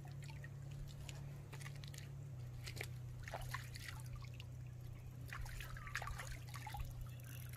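Water trickling, with small irregular splashes and drips over a steady low hum.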